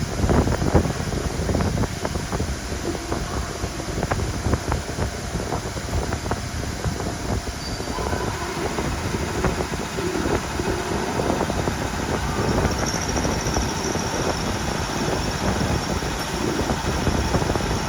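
Milling machine running with a dense, steady mechanical rattle; a faint high whine joins in about two-thirds of the way through.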